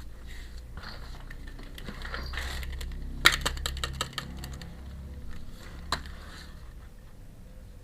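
Small metal pieces of a miniature steel toy kitchen set clinking as they are handled, with light rustling. A sharp clink about three seconds in is followed by a quick run of smaller clicks, and another clink comes near six seconds.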